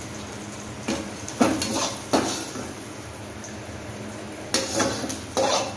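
A metal ladle clinks and scrapes against a steel plate and cooking pan as fried onions, raw mango and bitter gourd are scooped out and dropped onto the plate. There are about five sharp clinks, three in the first half and two near the end.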